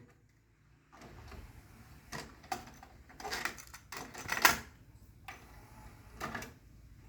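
A pause in the music between songs, holding only faint, irregular clicks and rustles, some spaced a fraction of a second apart and a louder cluster about four and a half seconds in.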